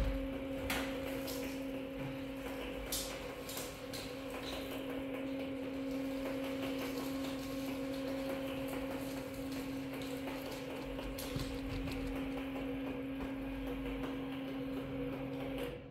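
Steady machine hum on one low tone, with a fainter tone above it, that cuts off suddenly near the end. A few light knocks and clicks of handling sound over it.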